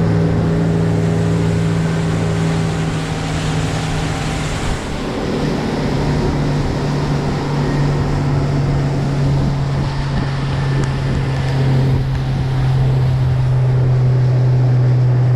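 Motorboat engine running steadily, its note stepping slightly lower about five seconds in, with a rushing of wind and water over it.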